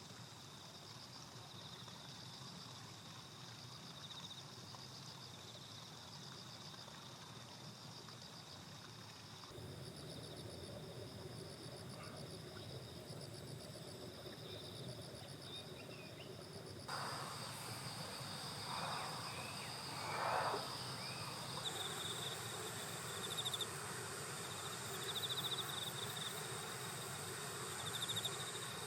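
Insects chirring in steady, high-pitched pulsing trills, with several overlapping songs. Around twenty seconds in there is a brief louder sound.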